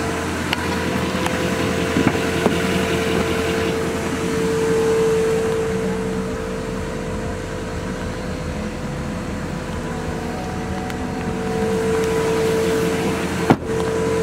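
Steady hum of the Duramax 6.6 V8 diesel pickup running at idle, heard from inside the cab, with an even tone that swells slightly twice. A few light clicks, and a sharp knock near the end.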